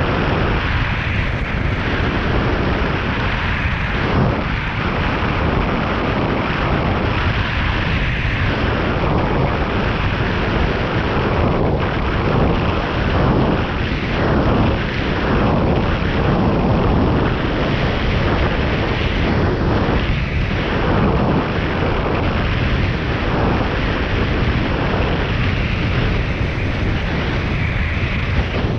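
Wind blowing across the microphone: a loud, steady rumbling rush that swells and eases a little without a break.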